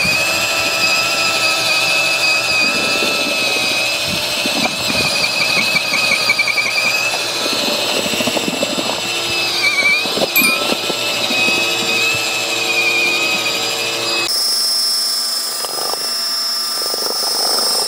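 HPT cordless brushless mixer drill running on its lowest speed setting, its paddle churning a full tub of stiff mortar. It gives a steady motor whine that wavers a little as the thick mix loads it, holding its speed without bogging down. The sound changes abruptly about fourteen seconds in.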